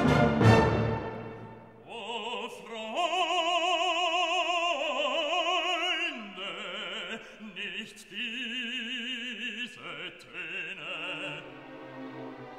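Background music: operatic singing in long held notes with wide vibrato, over an orchestra. A loud chord dies away at the start.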